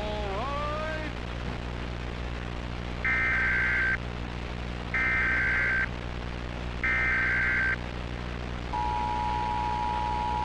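Emergency Alert System header: three one-second bursts of shrill digital data tones about two seconds apart, then, near the end, the steady two-tone EAS attention signal starts, all over a steady low hum.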